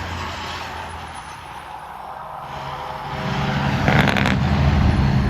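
A truck's engine running and growing louder from about three seconds in as it comes close, with a short sharp burst about four seconds in.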